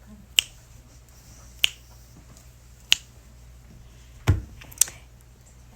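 A handful of sharp, separate clicks, about five, spaced a second or so apart over a quiet room background. The one a little past the middle carries a low thump.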